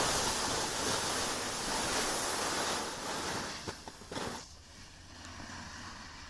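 Rushing hiss of gliding over packed snow, with wind on the microphone. A few short scrapes come about four seconds in, then the rush drops away to a much quieter hiss.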